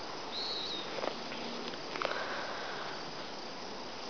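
Quiet backyard garden ambience: a steady even hiss, with one short high chirp about half a second in and a few faint clicks.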